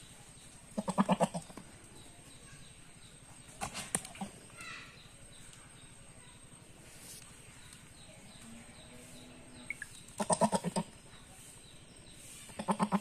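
Goats bleating: three loud, rapidly quavering bleats, one about a second in and two near the end. A single sharp knock sounds about four seconds in.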